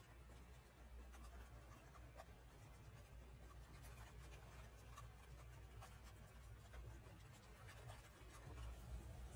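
Near silence: faint, scattered ticks of raindrops pattering over a low, steady rumble.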